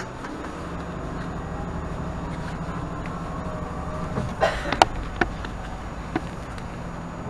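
2018 Nova Bus LFS diesel transit bus heard from inside while driving: a steady engine drone with a whine rising in pitch as it picks up speed. A few sharp rattles and clunks about four to five seconds in.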